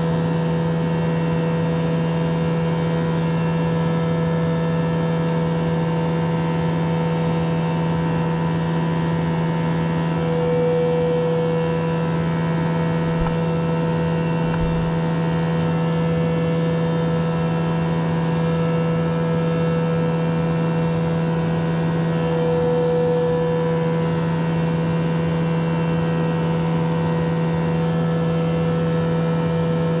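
A steady machine hum: a strong low drone with several higher steady tones over a hiss. One of the middle tones swells briefly twice.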